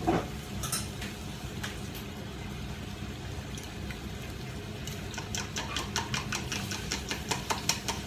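Metal spoon clinking quickly against the inside of a cup, stirring cornstarch into water to make a thickening slurry, starting about five seconds in. A steady low hum runs underneath, with a couple of knocks near the start.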